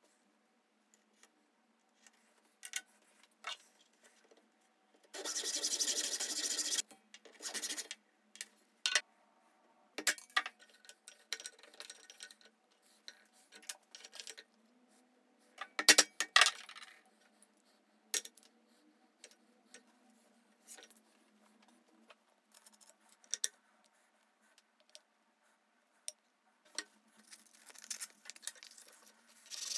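Hand woodworking on a small softwood stick over a wooden board: a scraping rub about five seconds in, scattered light clicks and taps of wood and tools being handled, and two sharp knocks near the middle as a hammer strikes a chisel. Near the end, sandpaper starts rubbing against the wood.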